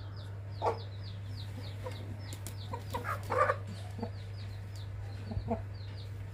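Aseel chickens clucking in short calls, the loudest about three and a half seconds in. Under them runs a steady stream of quick, high, falling peeps, several a second, and a constant low hum.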